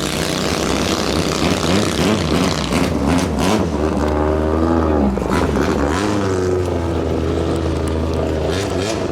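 Racing long-tail boat engines of the 5K class running hard, their pitch rising and falling as the throttles work, over a steady low rumble.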